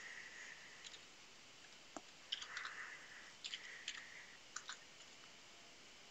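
Faint computer keyboard typing: scattered key clicks in short clusters, with gaps in between.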